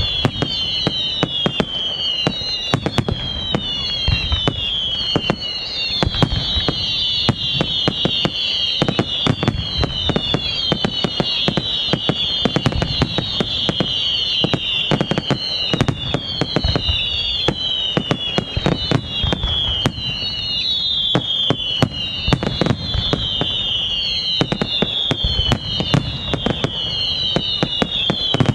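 Fireworks display by Pirotecnia Ricardo Caballer: a dense run of bangs and reports, with many overlapping whistling shells whose whistles fall in pitch, one after another.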